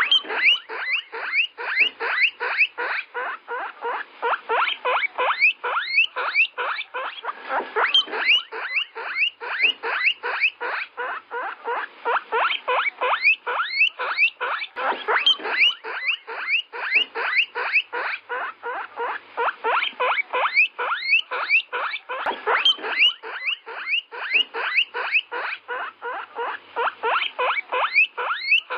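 An animal's rapid, unbroken series of short squeaky calls, about three to four a second, each call rising sharply in pitch.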